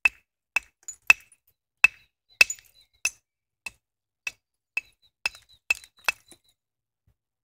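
A flint handaxe being knapped with an antler billet: sharp clinks, about two strikes a second, as small flakes come off the edge. This is the finishing stage, evening out an uneven, asymmetric part of the edge. The strikes stop about six seconds in.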